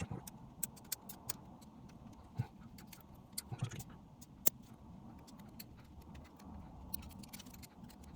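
Light, scattered clicks and ticks of small tools and phone parts being handled and pried apart, with one sharper click about halfway through.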